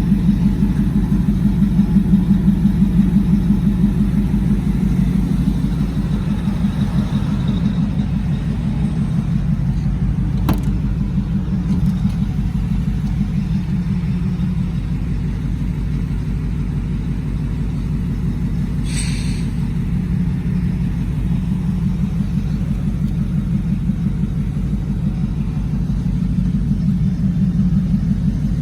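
Supercharged 5.4-litre V8 of a 2002 Ford Lightning idling steadily through long-tube headers and a Bassani cat-back exhaust, a deep, evenly pulsing exhaust rumble. A single sharp click sounds about ten seconds in.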